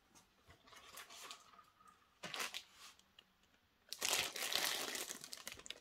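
Clear plastic wrapping on a cardboard model-train box crinkling as the box is picked up and handled. A few faint rustles come first, and it gets much louder about four seconds in.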